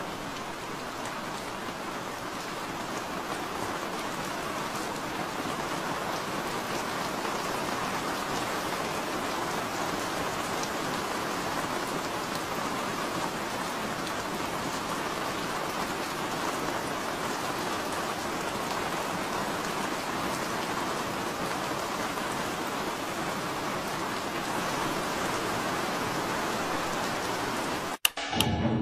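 Steady, even rain, swelling slightly over the first few seconds, then cut off abruptly by a single sharp click near the end.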